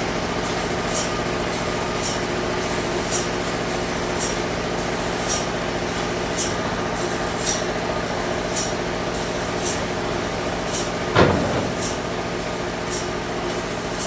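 Sawmill machinery running with a steady hum, and a short high tick repeating about once a second. A single louder knock comes about eleven seconds in.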